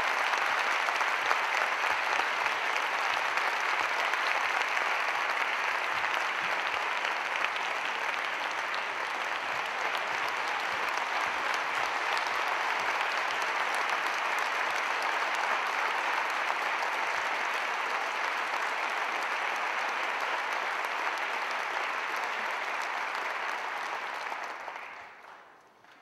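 Large audience applauding steadily, a long, even ovation that dies away a second or two before the end.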